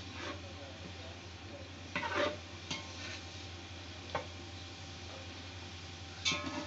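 Slotted metal spatula stirring sliced onions frying in oil in a large aluminium pot: a few scrapes and clinks of metal on the pot, about two, three, four and six seconds in, over a low sizzle.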